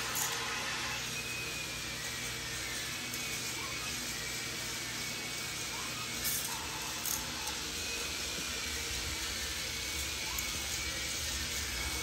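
Steady whirring of K'NEX toy roller coaster motors and plastic lift chains running, with a few light clicks.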